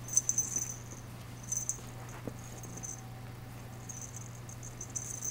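Faint scratchy rustling in short clusters, over a steady low hum.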